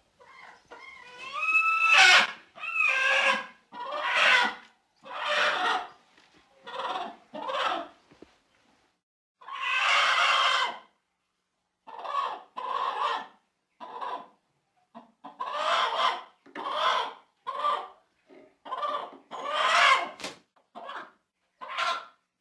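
Domestic hen squawking in a run of short, harsh, agitated calls, a few with sliding pitch. One long squawk comes about ten seconds in, and there are brief pauses between bursts.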